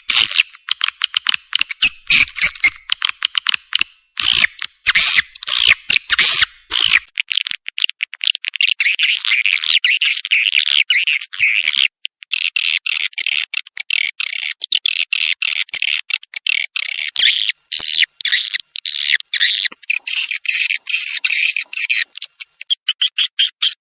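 Recorded swiftlet calls played as a lure sound for swiftlet nesting houses. Loud, rapid chirps run for about the first seven seconds, then give way to a dense, continuous twittering chatter.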